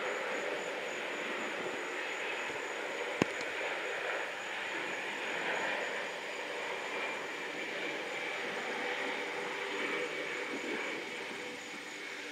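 Jet noise from a C-17 Globemaster III's four turbofan engines as it climbs away and banks: a steady rushing noise with a high whine that sinks slightly in pitch. A single sharp click about three seconds in.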